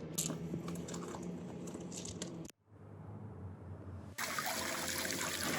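Background music that cuts off abruptly about halfway through. Near the end, water from a backyard pond fountain starts trickling and splashing as a steady hiss.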